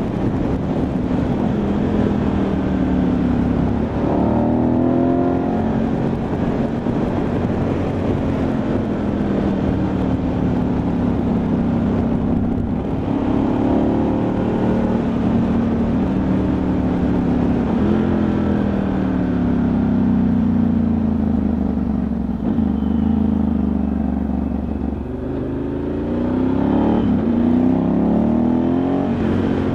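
Ducati Multistrada 1100S's air-cooled L-twin engine running on the road, its pitch rising and falling again and again as the rider opens and closes the throttle through the gears. Wind rushes over the microphone.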